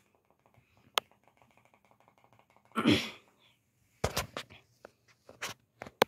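A ceiling fan being switched off: one sharp click about a second in, then faint rapid ticking over a low hum as the blades coast. Around three seconds in comes a loud short sound falling in pitch, and after four seconds several sharp knocks.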